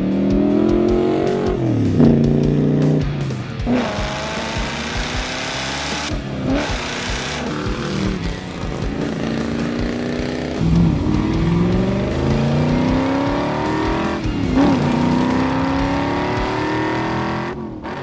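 1971 Plymouth Road Runner's 383 V8, stroked to 431 cubic inches, accelerating hard. The engine note climbs in pitch several times, dropping back between climbs.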